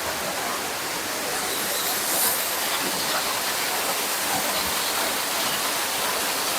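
Waterfall pouring, a steady, unbroken rush of falling water.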